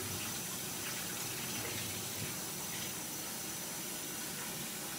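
Kitchen tap running: a steady, even rush of water.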